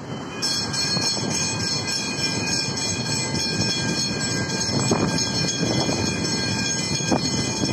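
Railway level crossing warning bells start ringing about half a second in, a steady high-pitched ringing that continues throughout, over the rumble of cars passing over the crossing.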